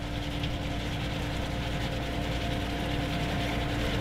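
Self-propelled tulip-topping machine running steadily as it heads the tulips: a steady engine hum with a held, even whine, growing slightly louder as the machine comes closer.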